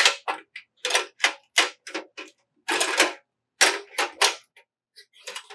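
Metal and plastic clicks and clacks as a butane canister is handled and seated in a portable Coleman butane stove's canister compartment: a quick, irregular run of sharp clicks, with a longer rattle about three seconds in.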